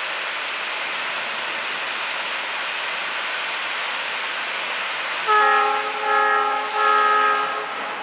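A steam locomotive whistle sounds three blasts, each a chord of several notes, over a steady rushing noise.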